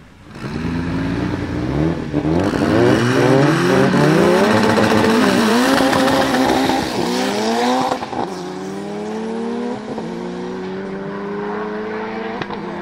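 Two turbocharged drag cars, a Lancia Delta among them, accelerating hard from the start line. Their engine notes rise and drop back with each upshift, then go on as quieter, slowly rising tones as the cars pull away down the strip, with a few sharp cracks in the last few seconds.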